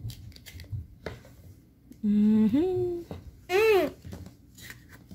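Large cardboard jigsaw pieces being slid and tapped on a wooden floor, with light clicks and rustles. In the middle, two wordless hummed vocal sounds: a held tone that then rises, and a moment later a short rising-and-falling one.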